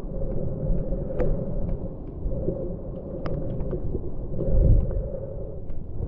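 Underwater river ambience picked up by a submerged action camera: a steady, muffled low rumble of moving water, dotted with scattered small clicks and ticks.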